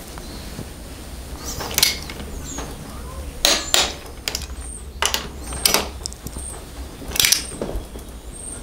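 Ratchet-head torque wrench clicking as it tightens a motorcycle's front brake caliper mounting bolt to 40 newton metres: a handful of sharp, separate metallic clicks at uneven intervals, some in quick pairs.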